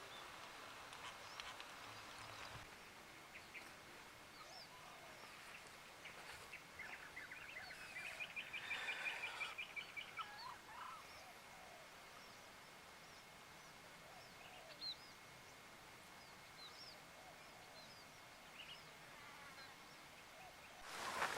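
Birds calling faintly: scattered short chirps and whistles, with a rapid trill of repeated notes about eight to ten seconds in. A faint steady high tone runs underneath.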